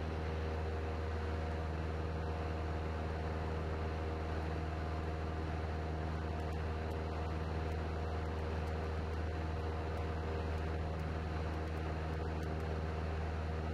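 Cessna 172N's four-cylinder Lycoming engine and propeller droning steadily in flight: a constant low hum with several steady higher tones over an even wash of air noise.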